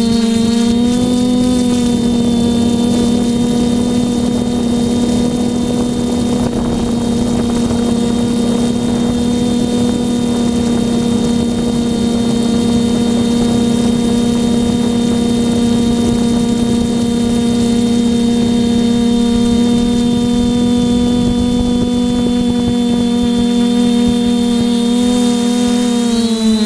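Electric motors and propellers of a multirotor drone humming steadily at one pitch, the pitch wavering and dipping briefly near the end as the throttle changes.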